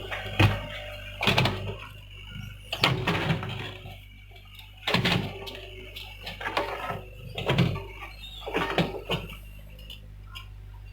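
Hyundai hydraulic excavator working, its engine running steadily underneath about a dozen irregular knocks and clunks.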